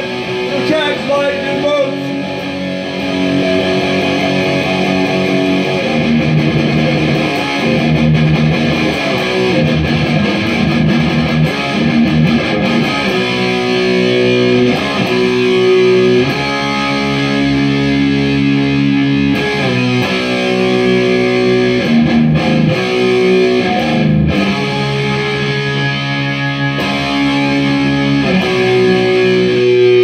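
Amplified electric guitar strumming chords in an instrumental stretch of a garage-punk song, each chord held and ringing for a second or two before the next.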